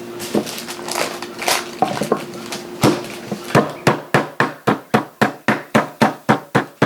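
Chicken breast being pounded flat under parchment paper on a cutting board: a few scattered blows at first, then steady, even strikes at about three to four a second from about halfway through.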